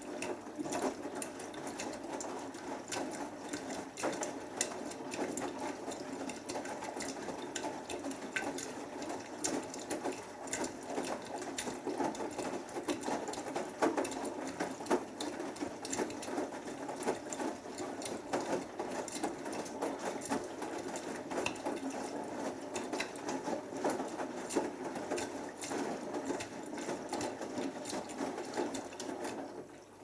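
Beko WMB81445L front-loading washing machine turning its drum during the main wash: steady motor whir with wet laundry churning and clicking inside the drum. It is one tumbling spell that starts at once and stops right at the end.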